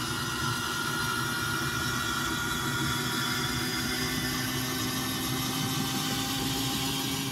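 Electric engine-hatch lift on a boat running with a steady whir as it raises the hatch.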